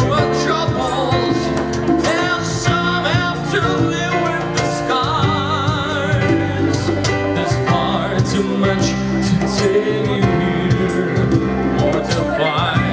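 Live band performing a song, with a singing voice holding wavering notes over sustained chords and bass.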